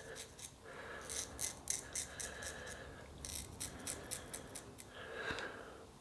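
Merkur Futur double-edge safety razor with a new Lord Platinum blade scraping through lathered stubble under the nose. It makes runs of short, quick, crisp rasping strokes with brief pauses between them.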